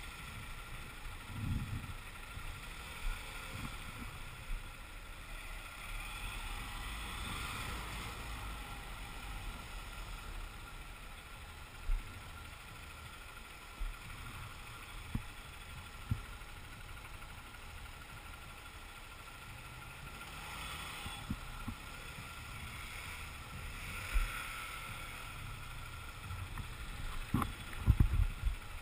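Motorcycle engine running at low speed in slow traffic, a steady rumble heard from the bike-mounted microphone with some wind on it. A few sharp knocks come through, with a cluster of louder ones near the end.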